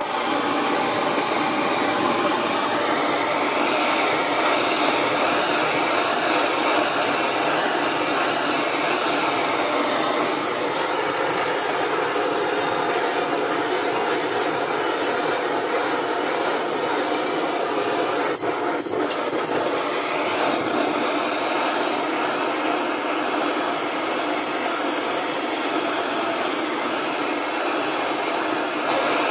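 Gas blowtorch flame burning with a steady hiss, heating the bottom of an aluminium motorcycle fork leg to free a threaded part, with one brief dip about two-thirds of the way through.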